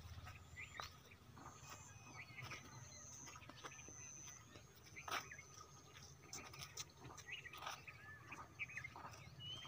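Faint birds calling in open farmland: scattered short chirps and whistled calls, with a few soft clicks and a low steady hum underneath.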